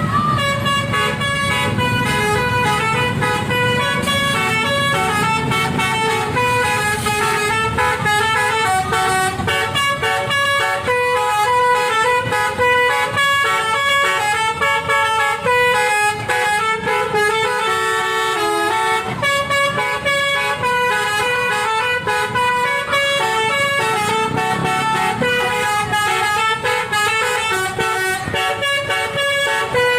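Telolet bus horn, a set of multi-note air-horn trumpets, playing a long, fast-moving melody with its notes stepping up and down several times a second and some sounding together as chords.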